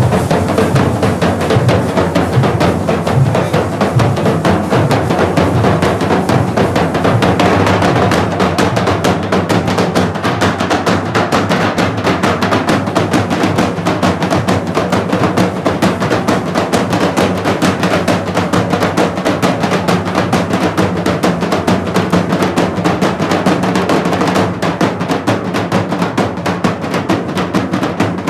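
A group of rope-laced, double-headed barrel drums beaten together in a fast, dense, loud rhythm that keeps up without a break.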